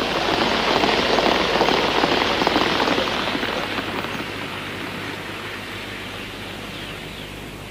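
Gauge 1 model train running on garden track: a dense, fast rattle of wheels over the rails, loudest at first and fading as the train moves away.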